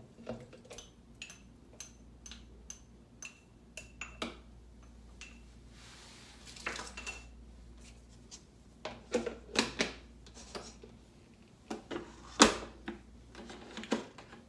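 A metal utensil clinks and scrapes against a ceramic bowl, a run of sharp ringing ticks about two a second, as raw beef cubes are tipped into a plastic blender jug. This is followed by plastic knocks and clatter as the lid is handled and the jug is pushed into a Tommee Tippee baby food steamer-blender, with one loud knock near the end.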